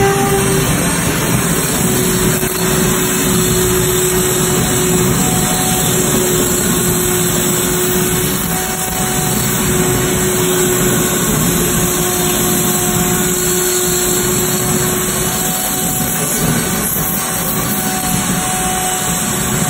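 Electric router running steadily under load, its bit cutting into rigid foam as it is swept along a template. It makes a continuous high whine over a cutting hiss.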